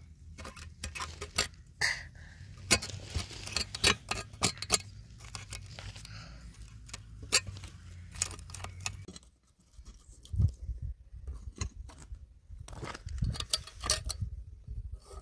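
Irregular sharp metallic clicks and scrapes as a knife and a thin wire are worked inside the steel socket of a shovel head, digging out the wood left from the old handle. A low rumble runs under it and stops about nine seconds in.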